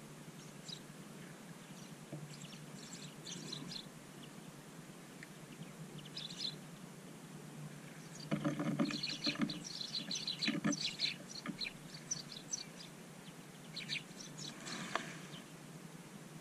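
Small songbirds feeding at scattered seed give short high chirps and calls in scattered bursts, with a louder, busier flurry from about eight to eleven seconds in and a few more calls near the end.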